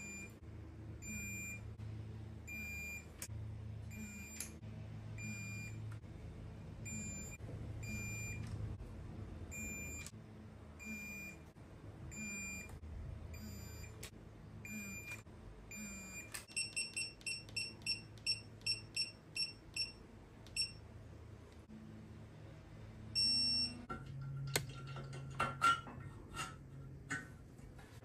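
Digital torque wrench beeping while cylinder head bolts are tightened through a torque-then-angle sequence (20 Nm, then 60° and 70°). Short beeps come about once a second, then a quicker run of slightly higher beeps for a few seconds, and one longer beep. Metal clinking follows near the end.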